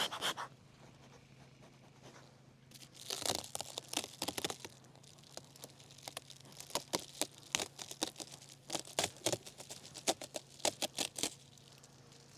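Crackling, scraping clicks as wooden beehive boxes and frames are handled and shifted, in irregular clusters from about three seconds in until near the end, over a faint steady low hum.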